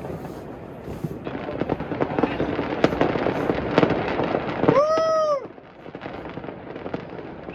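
Fireworks and firecrackers crackling and popping in a dense stream for a few seconds. A brief high tone rises and falls near the middle, then the popping thins out.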